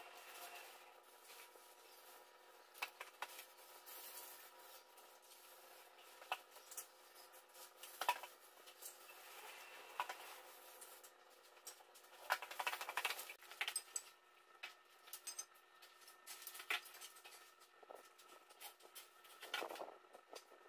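Faint handling noises, scattered clicks, taps and rubbing as a worker moves on the stairs and handles a caulking gun, over a steady low hum of room tone.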